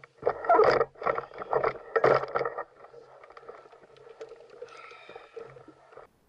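Handling noise on a fishing kayak: two loud rustling bursts in the first two and a half seconds, then quieter scattered clicks and knocks.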